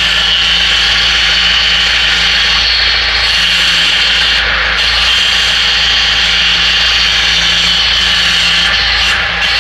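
A machine running steadily and loudly, with a continuous high whine over a low hum.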